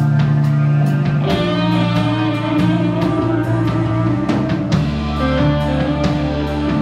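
A live rock band playing an instrumental passage: electric guitar holding and changing sustained notes over a drum kit, with cymbal hits.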